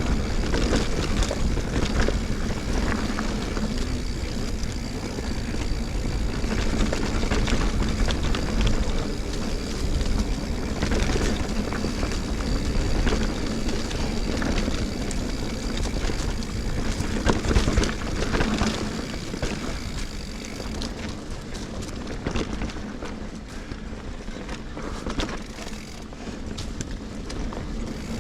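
Sonder Evol mountain bike descending a steep dirt trail: wind rushing over the GoPro's microphone, tyres rolling over the ground, and frequent rattles and knocks from the bike on bumps. A faint thin high whine sits in the background for most of it and stops about two-thirds through, where the run becomes a little quieter.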